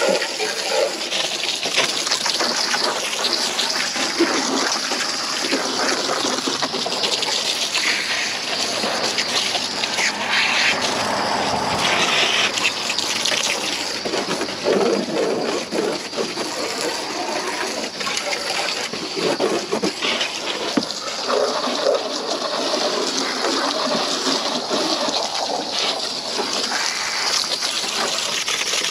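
Hot water poured from a bucket, splashing and running over a car's engine bay: the rinse that washes off the degreaser foam. The pouring and splashing goes on without a break.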